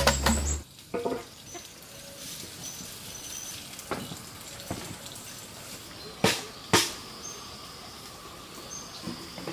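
Outdoor ambience with short, high bird chirps every second or so. A thump in the first moment and two sharp clicks a little after the middle.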